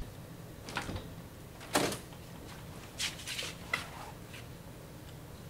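A door being opened and handled: a few scattered short clicks and knocks over a faint room hum, the loudest about two seconds in.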